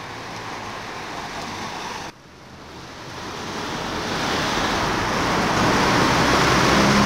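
Even rushing noise outdoors, like wind or traffic on a camcorder microphone, that breaks off abruptly about two seconds in and then swells steadily louder through the rest.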